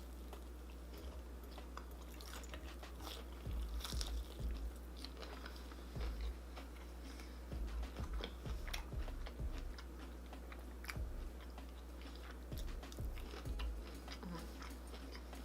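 Close-miked biting and chewing of food, with irregular small wet mouth clicks and soft thumps coming in clusters.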